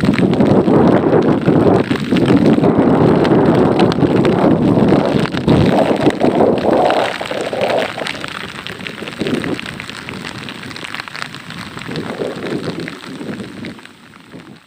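Heavy rain with strong, gusting wind, coming in surges that rise and fall, then dying away over the last few seconds.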